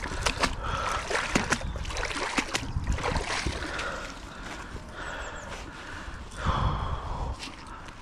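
A fishing magnet dragged out of canal water and up a muddy bank: water splashing and wet mud squelching, with many small clicks and knocks from the debris and rope, and a louder wet rush about two thirds of the way through.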